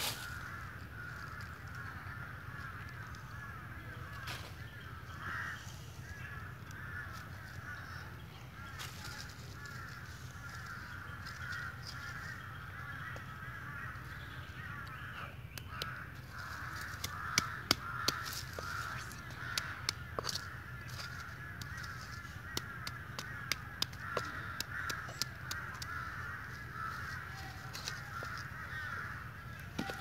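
A flock of birds chattering and cawing steadily, with a low hum underneath. In the second half there is a run of sharp clicks and knocks.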